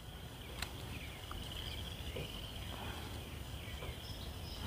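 Faint outdoor ambience: a steady high-pitched insect-like chorus in the background, with one small click about half a second in.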